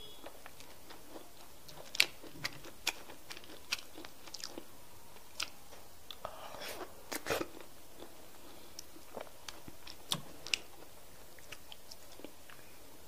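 Close-miked eating sounds of semolina fufu with slimy okra soup, eaten by hand: scattered wet mouth clicks and smacks while chewing. The densest, loudest stretch comes about seven seconds in, just after a handful goes into the mouth.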